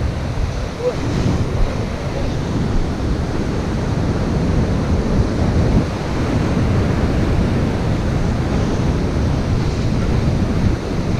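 Ocean surf breaking and washing against a rocky point, with wind buffeting the microphone; a steady rushing noise.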